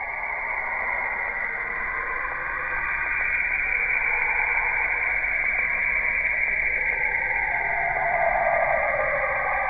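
Radio-like static hiss, thin and narrow in range, with a band of the noise sliding down in pitch about seven seconds in.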